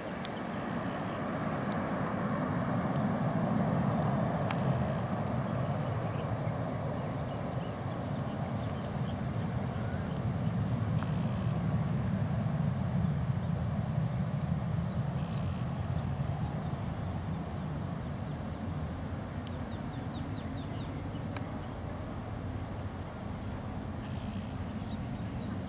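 Jet engines of a twin-engine widebody airliner climbing out after takeoff: a steady, deep roar that swells over the first few seconds and then slowly fades as the aircraft moves away.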